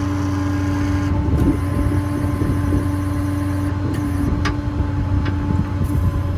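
Hydraulic crane on a diesel Ford F-550 service truck working its boom up: a steady hydraulic pump whine over the truck's engine running, with a couple of faint clicks in the second half.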